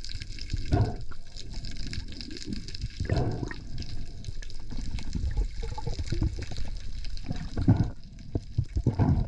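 Sea water sloshing and bubbling, with three louder gushes: about a second in, about three seconds in, and late on.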